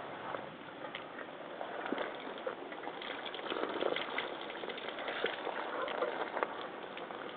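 Tap water splashing and running over rubber fishing waders as they are washed, with many small clicks and knocks.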